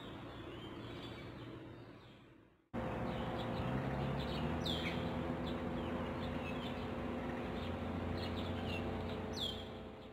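Outdoor ambience of birds chirping, short falling calls repeated now and then over a steady low hum. It fades out and cuts to a louder stretch of the same chirping and hum about two and a half seconds in, then fades again near the end.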